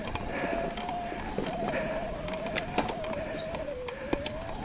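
Electric mountain bike's motor whining steadily under pedal assist, its pitch wavering slightly. Scattered clicks and knocks come from the bike rattling over rocky ground.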